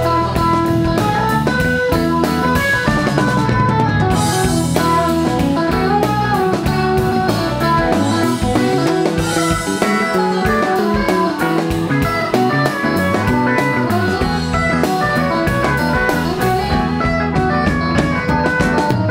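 Live rock band playing: electric guitars, bass, keyboards and drum kit, with a steady beat.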